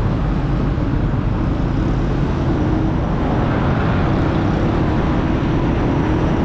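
Motorcycle riding along a city street: its engine running steadily under a constant rush of wind and road noise, with traffic around it.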